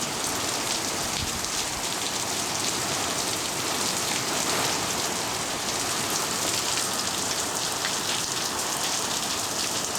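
Heavy, wind-driven rain and hail of a hail storm pelting down, a steady dense hiss of countless small impacts.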